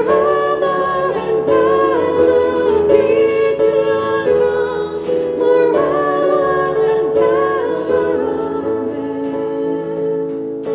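Worship song sung by two women's voices to acoustic guitar accompaniment, the melody moving through long held notes.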